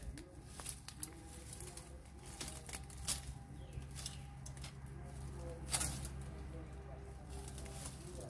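Bamboo stems and dry leaves rustling and crackling as they are pushed and pulled by hand, with two sharp snaps, the louder one about six seconds in.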